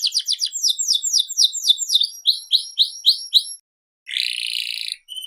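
Domestic canary singing a long, varied song. It opens with a fast trill, moves to a run of falling notes and then slower rising notes, pauses, and ends with a buzzy phrase.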